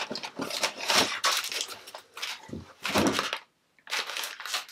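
Rustling and crinkling from a cardboard box and a plastic snack packet being handled, in irregular bursts, with a brief dropout about three and a half seconds in.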